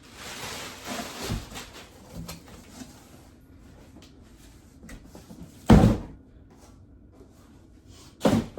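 Cardboard box and plastic packaging being handled: rustling for about three seconds, then two loud thumps about two and a half seconds apart.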